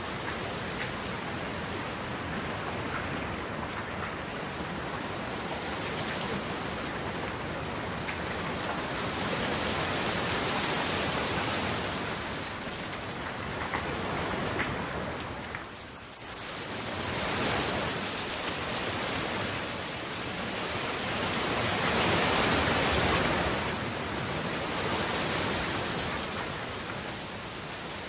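Steady rain hiss, rain falling on surfaces, that swells and fades in slow waves, with a brief lull about halfway through.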